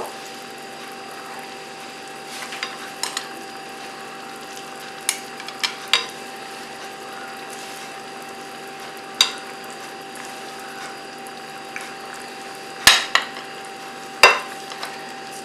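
Chicken, onion, coconut cream and yellow curry paste sizzling steadily in a hot frying pan while a utensil stirs, with scattered scrapes and knocks against the pan and two louder knocks near the end.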